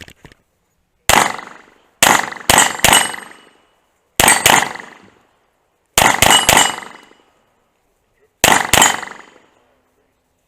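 Pistol shots fired in quick pairs and short strings, roughly a dozen in five groups separated by pauses of about a second, with steel targets ringing after some of the hits.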